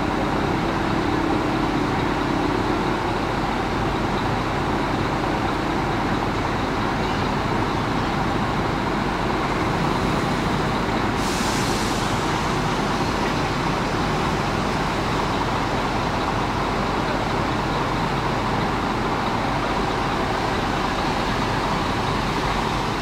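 Steady engine rumble of large diesel intercity coaches running and moving slowly at close range, with a short hiss about eleven seconds in.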